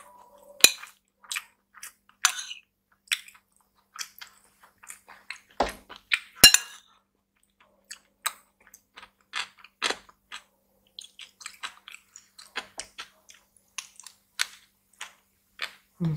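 Close-miked chewing and wet mouth sounds of someone eating rice with vegetables, a steady run of short crackles. A metal spoon clinks and scrapes against a ceramic bowl now and then, with two sharper clinks, one early on the first second and one about six seconds in.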